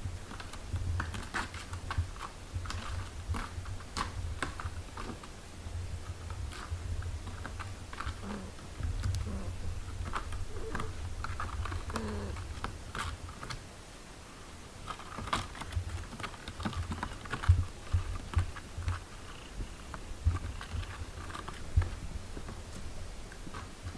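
Newborn kittens suckling at their mother: a run of soft, irregular wet clicks and smacks, with a few faint squeaks.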